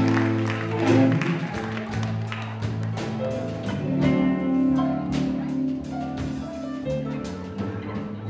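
Live band playing amplified electric guitars, bass guitar and keyboards, mostly in long held notes.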